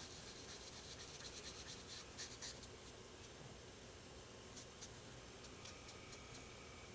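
Foam sponge dauber dabbed and rubbed onto paper cardstock, giving faint, quick scuffs, thickest in the first couple of seconds and scattered after, as ink is sponged on for shadows.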